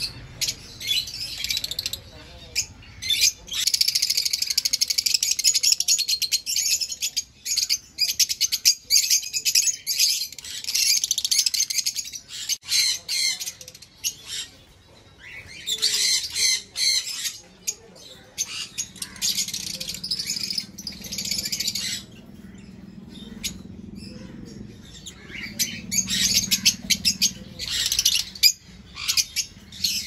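A flock of caged Fischer's lovebirds chattering: shrill, rapid chirps and squawks in several bouts, with short lulls between them.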